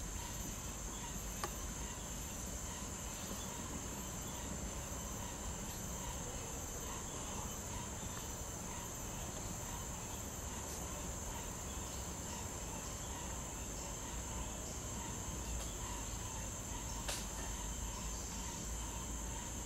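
Steady, high-pitched drone of jungle insects, with a low rumble underneath. Two faint clicks, one about a second and a half in and one near the end.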